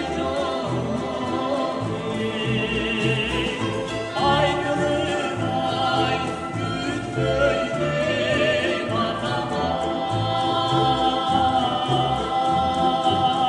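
A man and a woman singing a duet in Kyrgyz with vibrato, backed by a folk-instrument orchestra of plucked lutes and a double bass keeping a pulsing bass line.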